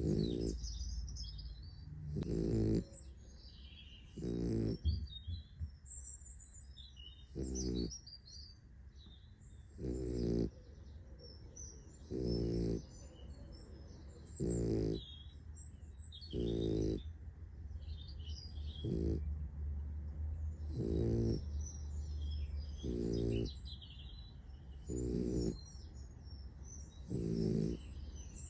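A sleeping puppy snoring. Each snore is short and pitched, coming regularly about every two seconds, about a dozen in all.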